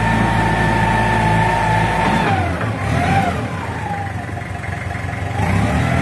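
Small Mitsubishi wheel loader's diesel engine running, with a steady high whine that glides down and drops away a little over two seconds in; after that the engine note rises and falls.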